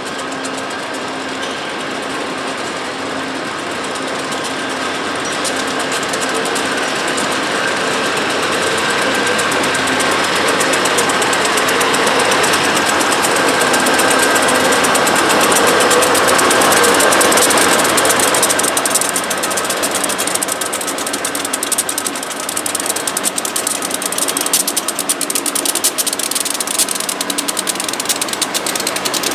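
A freight train passing: the diesel locomotives' engines grow louder to a peak a little past halfway. After that the empty freight cars roll by with a fast, steady clatter of wheels on the rails.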